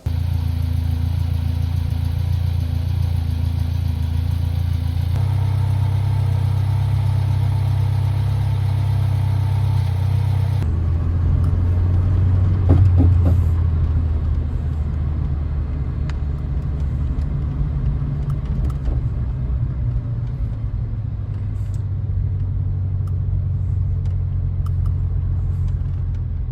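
A 1988 Citroën BX on the move, its engine and road noise a loud, steady low rumble. The sound changes abruptly about five and eleven seconds in, and swells briefly a little after that.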